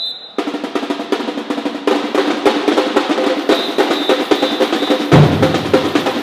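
Percussion ensemble drumming a fast, busy rhythm of snare drums and rolls over bass drums, with one heavy bass drum hit about five seconds in.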